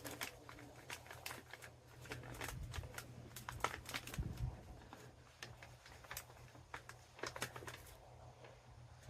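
Hands working in potting soil while planting sweet potato slips: scattered rustling and crinkling, with small irregular clicks and scrapes.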